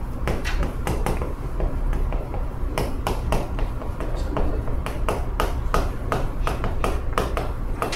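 Chalk writing on a chalkboard: a quick, irregular run of sharp taps and short scratches, several a second, as each handwritten stroke goes down.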